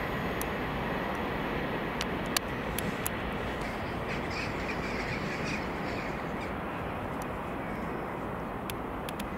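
Steady outdoor background rumble, with a bird calling in a short, quick series of notes about four seconds in and a few sharp clicks.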